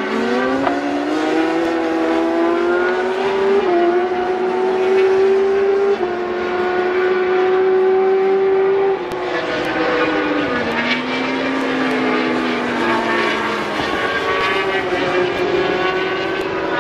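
Superbike racing engine at high revs, its pitch climbing and stepping as it shifts up through the gears, falling away around ten seconds in, then rising again near the end.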